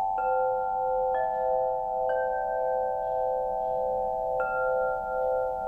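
Quartzophone crystal harp (model H2, wood frame) with quartz tubes tuned to 432 Hz, struck with a soft mallet. Four notes, the first three about a second apart and the fourth after a pause. Each note rings on long and clear over the tones still sounding.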